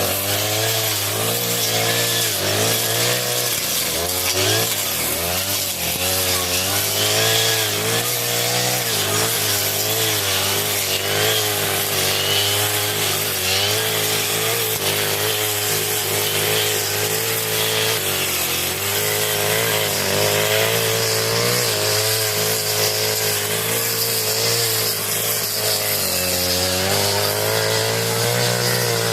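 40cc two-stroke brush cutter running at high revs through thick grass, its engine note dipping and rising every second or so as the blade takes the load.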